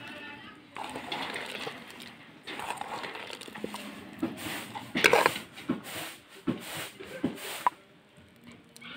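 Wet squelching and crackling of a hand squeezing and kneading a mash of crushed jujubes with salt and chilli in a steel bowl, in irregular bursts, the loudest about halfway through.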